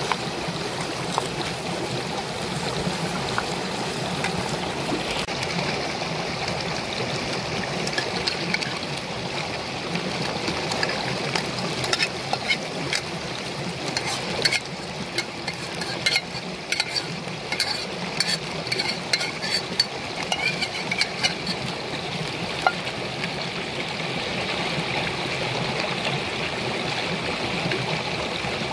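River water rushing steadily over rocks, with a metal spoon clinking and scraping against steel cooking pots as food is stirred and spooned in; the clinks come thickest in the middle.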